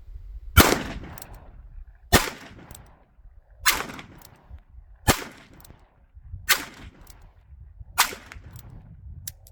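Revolver firing six .357 Magnum hand loads, one shot about every one and a half seconds, each a sharp crack with a short echo. All six go off normally with no squib.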